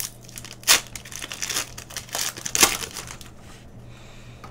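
Foil wrapper of a Panini Prizm basketball card pack crinkling as it is torn open, with two loud sharp crackles, one under a second in and one near three seconds in. It goes quieter for the last second or so.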